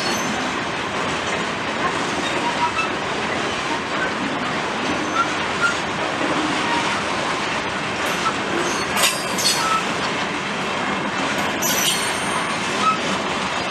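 Loaded freight train rolling along the track: a steady rumble and rattle of wagons on the rails, with short high-pitched wheel squeals flaring twice, about two-thirds of the way in and again near the end.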